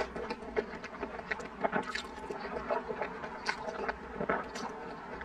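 Close-up slurping of sweet potato glass noodles, a fast, irregular run of wet sucking and smacking sounds.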